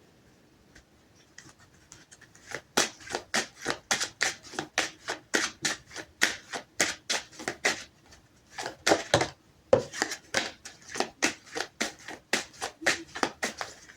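Tarot cards being shuffled by hand: a steady run of short slaps about three a second, starting a couple of seconds in, with a brief pause past the middle.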